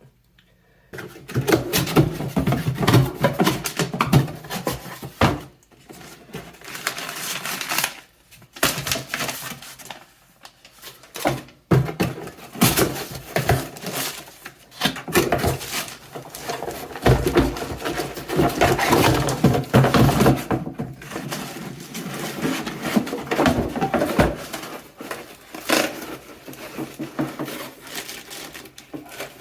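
Irregular knocking, clattering and scraping of metal and plastic parts as an old bathroom sink faucet is worked loose and pulled out of the sink, with a few short pauses.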